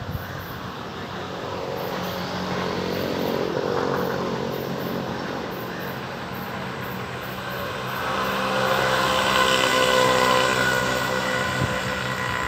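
Steady engine hum with a distinct pitch over a background of noise, swelling louder about two-thirds of the way through.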